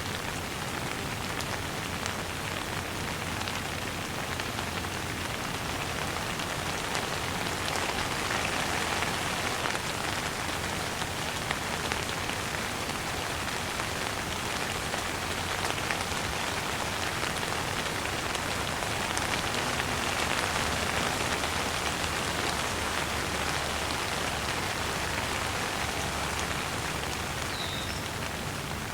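Shower running: a steady spray of water pattering down, with slight swells in level.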